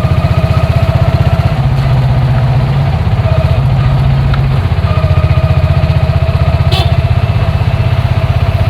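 Bajaj auto-rickshaw's single-cylinder compact diesel engine idling, a steady, even chugging.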